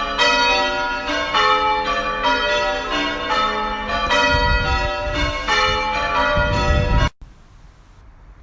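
Church bells being rung in changes, several bells striking in quick, even succession, each note ringing on under the next. A low rumble joins in the second half, and about seven seconds in the ringing cuts off abruptly, leaving only a faint background.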